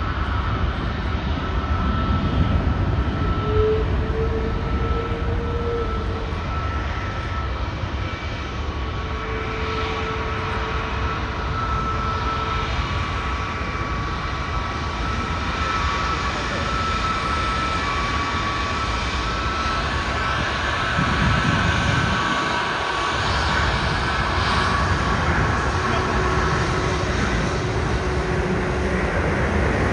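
Jet airliner's engines running during departure: a steady rumble with a thin whine above it.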